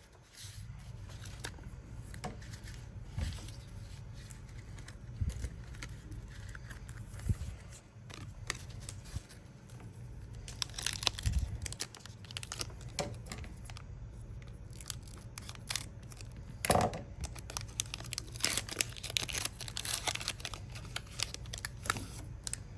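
Foil Pokémon booster pack wrapper being torn open and crinkled, with scattered clicks and taps of cards being handled; the crinkling comes in bunches, heaviest around the middle and in the second half.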